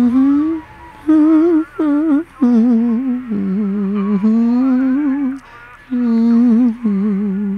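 A voice humming a slow tune, one held note after another with a wobble in the pitch and short breaks between phrases.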